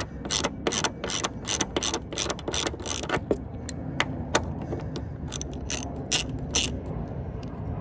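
Socket ratchet clicking in short runs, about three clicks a second with a brief pause midway, as a 10 mm bolt on the hatch strut bracket is turned.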